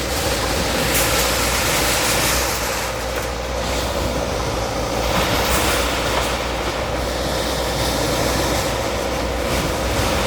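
Diesel engine of a demolition bulldozer running steadily with a constant hum, over a rough noisy wash with a few short cracks.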